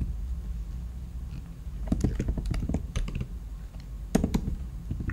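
Typing on a computer keyboard: a quick run of key clicks about two seconds in, then a few more keystrokes near the end, over a low steady hum.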